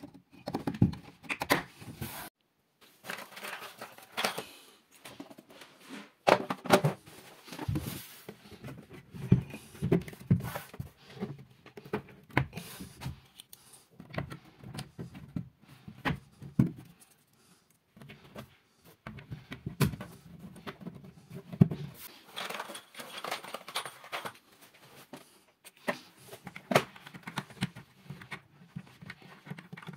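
Hands handling small plastic parts and their packaging against a wardrobe's panels: irregular taps, clicks and crinkles, stopping and starting with short pauses.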